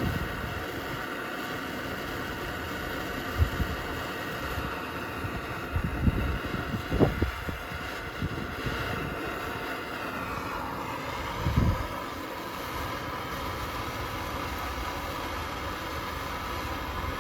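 Torch flame burning steadily, heating a battery cable terminal so the solder inside melts. A few light knocks, and a tone that falls about ten seconds in.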